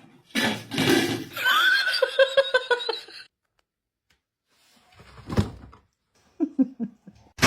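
A person laughing in quick repeated bursts, a sharp knock partway through, then a few short chuckles.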